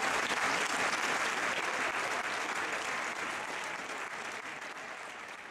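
Audience applauding, loudest about a second in and then slowly dying away.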